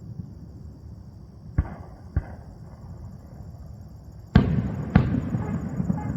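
Aerial fireworks shells bursting: two lighter bangs about a second and a half in, then two loud booms half a second apart just over four seconds in, with a rumbling echo that lingers after them.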